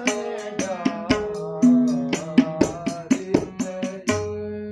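Classical Kumauni Holi song: a man singing a long, wavering line, accompanied by tabla strokes over a steady held drone.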